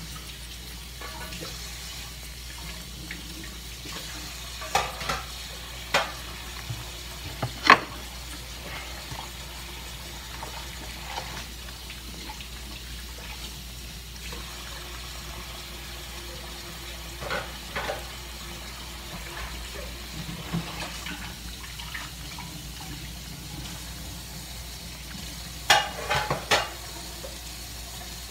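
A baby Virginia opossum chewing soft fruit with its mouth open: wet smacking and clicking sounds, in short clusters with pauses between them, over a steady low hum.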